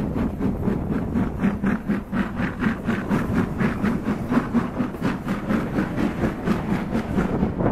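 LMS Jubilee Class 45699 'Galatea', a three-cylinder 4-6-0 steam locomotive, moving slowly, its exhaust chuffing in a quick even beat of about five a second.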